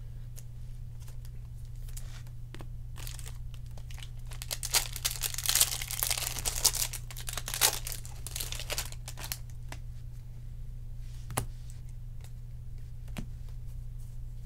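Foil wrapper of a baseball card pack being torn open and crinkled, the crackling densest from about four to nine seconds in. A few light clicks follow as the cards are handled.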